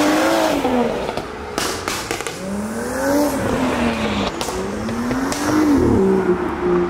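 A car engine accelerating hard away through the gears, its note climbing and dropping back three times at the upshifts, with a few short sharp cracks in between.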